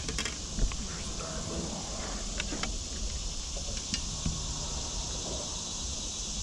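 Steady high insect drone from the riverside woods, with scattered small clicks and taps of fishing tackle being handled on a boat deck.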